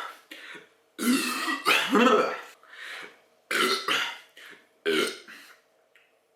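A man belching loudly, a run of about five beer belches in quick succession, the first two the loudest.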